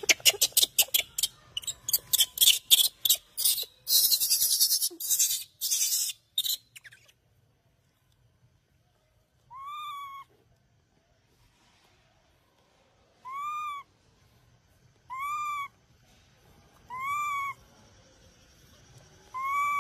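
A quick run of sharp clicks and rustling over the first several seconds. After a pause come five short coo calls from a baby macaque, each rising then falling in pitch, about two seconds apart.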